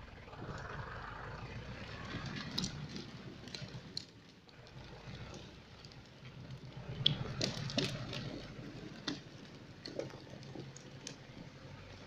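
Forestry tractor's diesel engine running as it pulls away, dragging felled logs over the forest floor, with scattered cracks and knocks of wood, branches and chain throughout, busiest about seven seconds in.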